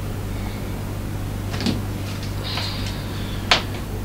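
A door being handled: a brief squeak, then a sharp latch click about three and a half seconds in, over a steady low hum.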